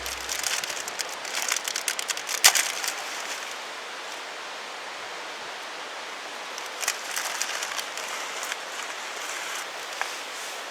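Steady rushing of a mountain stream, with scattered small clicks and light knocks in two clusters, the sharpest about two and a half seconds in.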